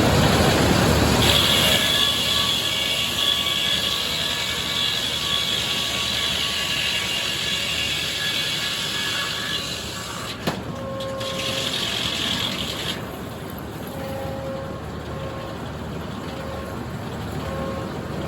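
Sawmill saw running and cutting through a red oak log, with a steady high whine over the noise for the first half; the sound drops and changes about ten seconds in.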